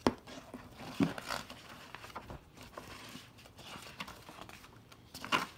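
Paper rule book pages being turned by hand. Continuous rustling is broken by sharp page flaps: one at the start, one about a second in, and the loudest near the end.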